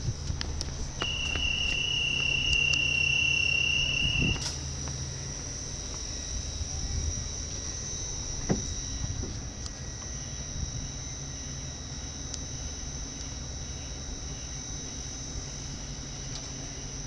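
NS ICMm train's door-closing warning tone: one steady high beep lasting about three seconds, which ends in a sharp thump as the door shuts. A thin steady high whine and a low hum from the standing train run throughout, with another light clunk about halfway.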